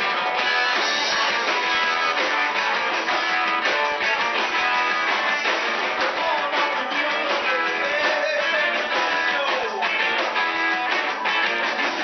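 Live rock band playing: electric guitars over a drum kit, a full steady groove.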